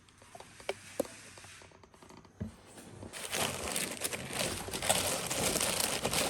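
A few light clicks and taps, then from about three seconds in, steady crinkling of plastic packaging as the air fryer oven's accessories are unwrapped.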